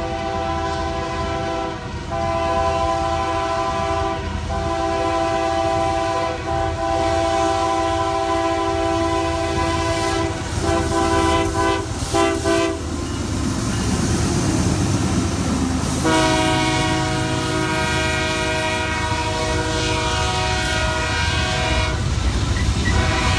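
Nathan K3L five-chime air horn on a CP AC44CWM diesel locomotive sounding long blasts, with several short breaks and a pause of about three seconds near the middle. The low rumble of the train's diesel locomotives runs underneath.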